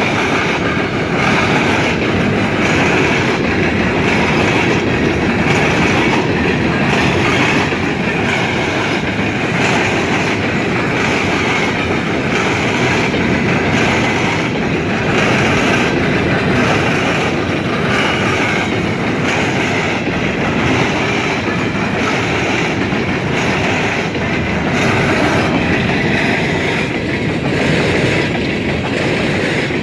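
An empty coal train's open-top hopper cars rolling past close by, with a steady wheel-on-rail rumble. Wheels clack regularly over the rail joints, about once a second.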